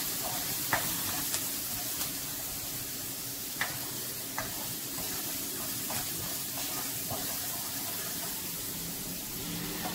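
Onion, green chilli and spice masala sizzling in hot oil in a nonstick kadai while it is stirred with a spoon, which knocks against the pan every second or so.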